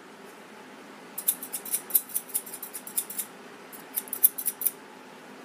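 Pair of scissors snipped open and shut in the air: a quick run of sharp metal clicks starting about a second in, a short pause, then a second run near the end.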